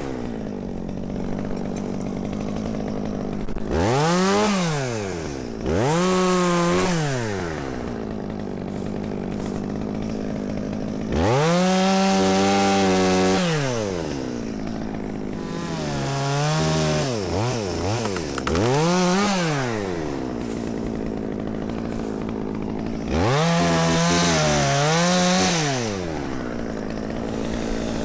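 Two-stroke chainsaw idling, revved up to full throttle and back about six times, each burst lasting one to two seconds, with a quick run of throttle blips in the middle.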